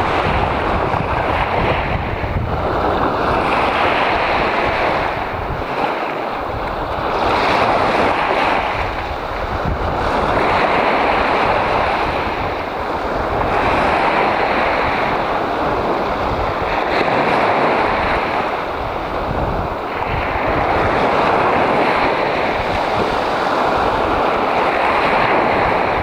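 Small sea waves breaking and washing up a sandy beach. The surf keeps rising and easing every two to three seconds.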